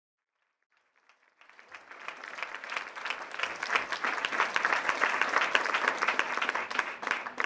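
Audience applause that starts out of silence about a second and a half in and builds quickly to a steady, dense clapping.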